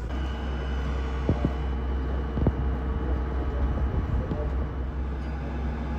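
Crane's engine running steadily: a low drone with a steady high-pitched whine over it, and a couple of light knocks.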